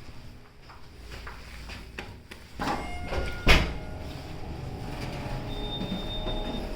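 Elevator doors sliding, with a sharp knock about halfway through, then the steady low hum of the elevator car running, with a faint high tone near the end.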